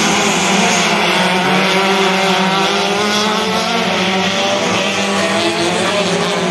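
Race car engine running with a loud, steady engine note that wavers slightly in pitch.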